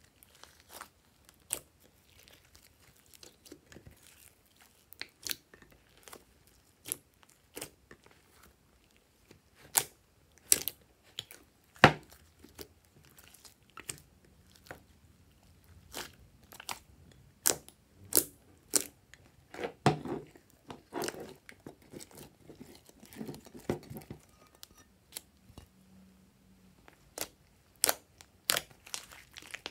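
Hands kneading, squeezing and stretching a large mass of slime made from clear slime mixed with foam and clay, giving irregular sharp pops, clicks and crackles. They come thicker and wetter for a few seconds about two-thirds of the way through.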